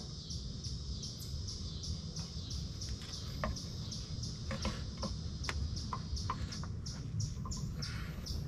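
A bird chirping over and over, short high chirps several times a second, over a low steady background rumble, with a few faint clicks scattered through.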